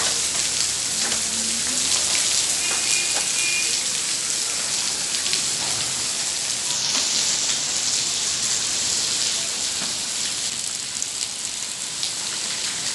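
Heavy rain pouring down: a steady, dense hiss of rainfall.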